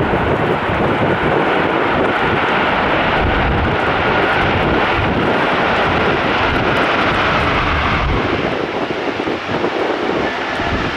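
Airbus A330-200's Rolls-Royce Trent 700 turbofan engines running loudly: a steady rushing jet noise with a faint whine, easing off a little near the end.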